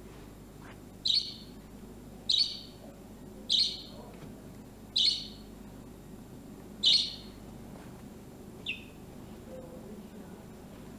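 A small bird chirping: six short, high chirps, one every second or two, the last one weaker, over a low steady hum.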